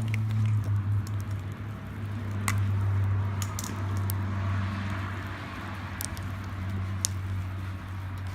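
Wood campfire crackling, with a handful of sharp pops and a soft hiss that swells in the middle, over a steady low hum.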